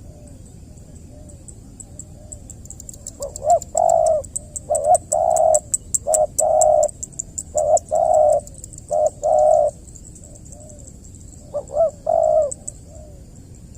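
Spotted dove cooing: a run of loud, repeated coo phrases for several seconds, then one more phrase after a pause near the end, with fainter cooing from another dove in the background. It is the dove's calling coo, used to provoke rival doves.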